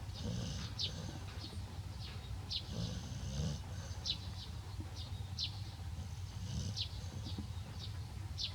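An elderly woman snoring loudly, with a rough low snore every few seconds. Short high chirps repeat over it about once a second.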